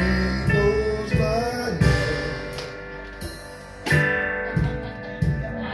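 Live gospel worship music: a man singing lead over a band with guitar, with sharp drum-like hits landing every second or so.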